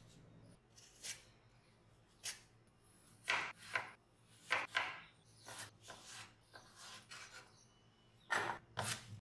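Chef's knife cutting potatoes on a wooden chopping board: about a dozen sharp, unevenly spaced chops and slices.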